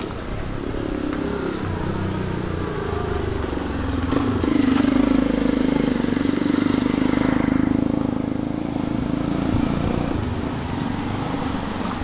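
A vehicle engine running on the street, growing louder about four seconds in, holding a steady pitch for a few seconds, then fading away.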